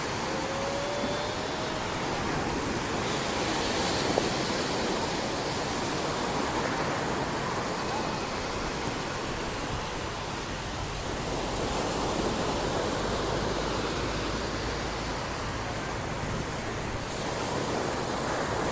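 Sea waves breaking and washing up a beach: a steady rushing hiss that swells and eases slowly a few times.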